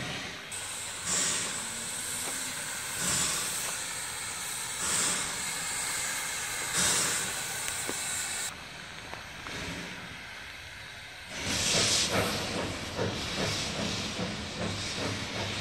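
Nevada Northern steam locomotive No. 40, built in 1910, venting steam while being warmed up: a high hiss that swells about every two seconds. About eleven seconds in a louder, steadier hiss starts, with steam blowing from the cylinder cocks low on both sides as the engine moves.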